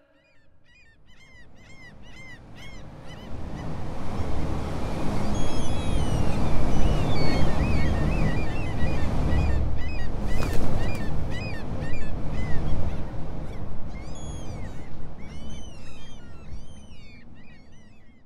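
Herring gulls calling: many short, arching cries, overlapping, over a low rumbling noise. The sound fades in over the first few seconds and out near the end, with a sharp click about halfway.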